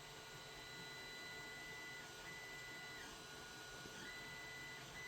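Faint high-pitched electronic whine that cuts in and out irregularly every second or two, over a steadier, fainter tone and low hiss.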